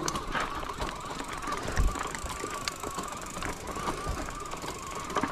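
Bicycle riding noise: wind thumping on the microphone, with a steady, slightly wavering whine and scattered light clicks.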